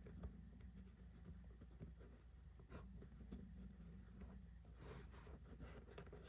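Faint scratching and light clicks of a small nut being worked by hand onto the short threaded shaft of a rotary switch, over a low steady hum.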